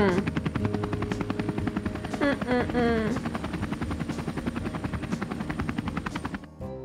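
Helicopter rotor sound effect: a rapid, steady chopping. About two seconds in, a short wavering voice-like call cuts across it. Near the end the chopping stops and gives way to soft music.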